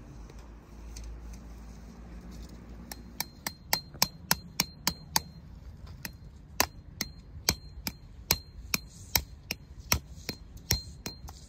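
Hammer striking metal, about two dozen sharp blows at a brisk pace, each with a short ringing note. The blows begin about three seconds in and pause briefly midway.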